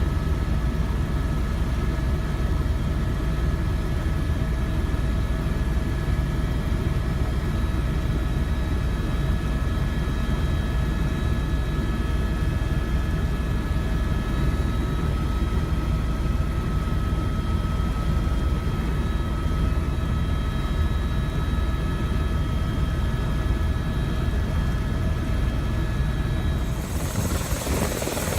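Tour helicopter running steadily in flight: a constant low rotor and engine rumble with several steady turbine whine tones above it. Near the end the sound turns brighter and hissier.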